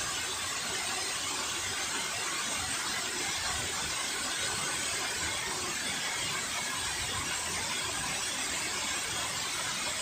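Steady rush of river water pouring over a cascade, an even hissing noise without a break.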